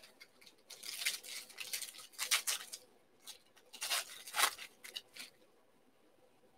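Crinkling and rustling of foil and clear plastic card wrapping being torn and handled, in a series of short crackly spells for about four and a half seconds.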